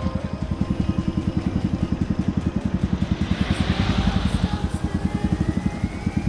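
Keeway KLight 202 motorcycle engine idling, a steady rapid low pulsing. About halfway through a hiss swells and fades, and a thin rising tone comes in near the end.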